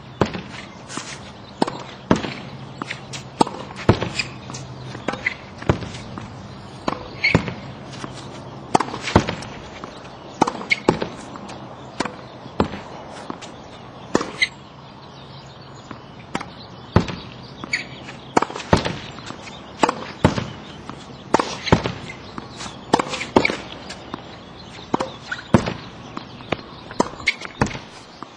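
Tennis forehands hit against a practice wall: sharp pops of the racket striking the ball, the ball hitting the wall and bouncing on the hard court, coming in quick groups every second or two.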